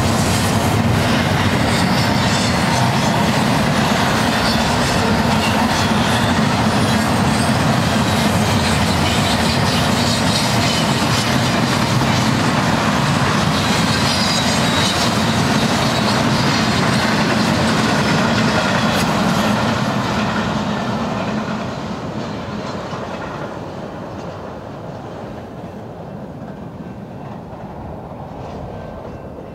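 Double-stack intermodal container train rolling past, a loud, steady noise of steel wheels on the rails; about two-thirds of the way through the last cars go by and the sound fades away as the train pulls off.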